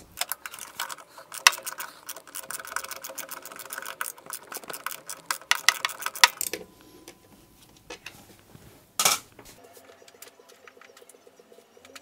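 Rapid metallic clicking and rattling of hand tools working on a washing machine's back for about six and a half seconds, then quieter scattered clicks and one short loud scrape about nine seconds in.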